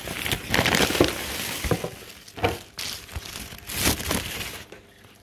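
Packing paper and plastic bags crinkling and rustling as they are handled in an irregular run of crackles, dying away near the end.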